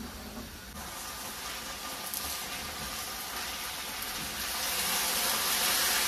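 Thinly sliced potatoes sizzling in oil in an uncovered frying pan as they are turned with a spatula. The sizzle gets louder about a second in and again past the middle.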